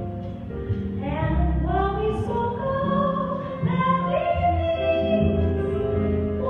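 Live concert music: a band or orchestra playing slow, sustained notes, with a singing voice.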